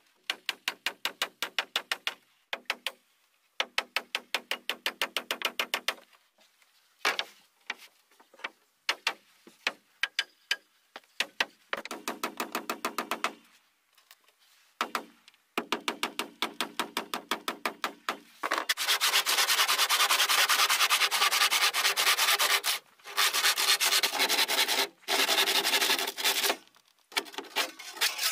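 A hand tool worked against pine boards: runs of fast, even rasping strokes with short pauses between them, then a louder, denser scraping from about two-thirds in, broken twice.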